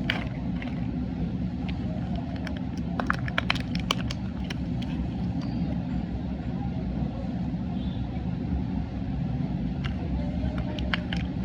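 A steady low rumble, with scattered sharp clicks and crackles in two clusters, a few seconds in and again near the end.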